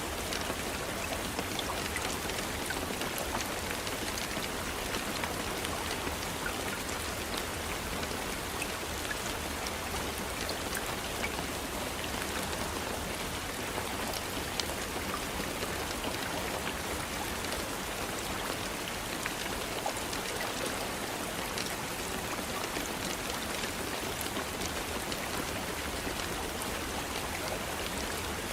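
Steady rain falling, an even hiss with scattered individual drops pattering on a surface.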